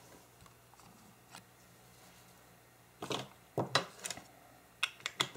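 Paper being handled: after a quiet stretch, a rustle about three seconds in, then several short crinkles and light taps near the end.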